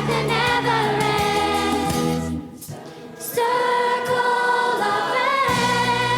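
Youth choir singing with instrumental accompaniment. The music breaks off briefly about two and a half seconds in, then the choir comes back on a long held chord.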